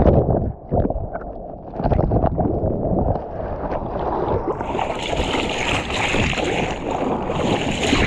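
Seawater rushing and splashing around a surfer's action camera: muffled for about a second as the camera goes under, then a loud hiss of splashing water and spray on the microphone for the second half, as the surfer paddles out over the waves.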